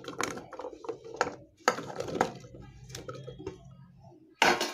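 Chopped vegetable pieces dropping from a steel plate into a metal pressure cooker pot, with scattered knocks and clinks of metal on metal and a louder clatter near the end.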